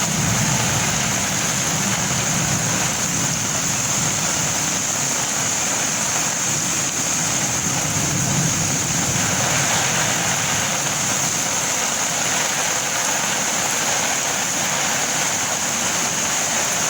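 Steady rushing of storm floodwater, an even hiss that holds without a break.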